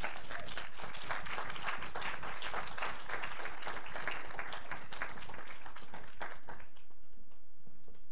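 Audience applauding, a dense spread of many hands clapping that thins out and stops about seven seconds in.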